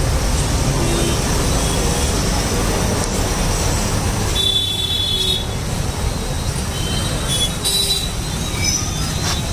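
Steady street-traffic rumble from passing vehicles, with a short high horn toot about four and a half seconds in.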